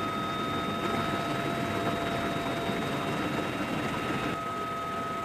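Cabin noise of a UH-1Y Venom helicopter in flight with the side door open: a steady rush of rotor and wind noise with constant high whining tones from its twin turboshaft engines and transmission.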